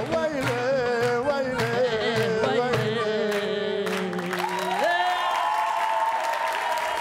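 An elderly man and woman singing a duet in Lebanese Arabic over live music with hand percussion. The drumming stops about three seconds in. A little later both voices jump up to one long final note and hold it together.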